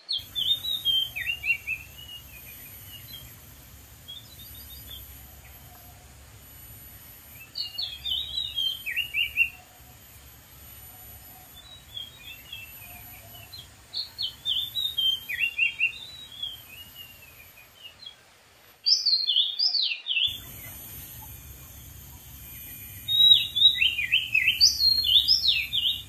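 Oriental magpie-robin singing: about five bouts of quick, varied whistled phrases a few seconds apart, the loudest near the end.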